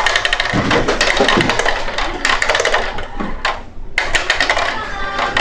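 Small plastic balls rattling and clattering as they roll down the spiral ramps of a plastic ball-drop tower toy: a fast, uneven run of ticks and taps, with a short lull near the end.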